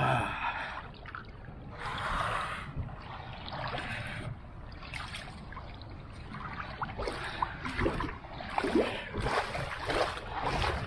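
Seawater splashing and sloshing as a person moves through shallow water, the splashes irregular and getting busier in the second half, over a steady low rumble. A short breathy sound right at the start.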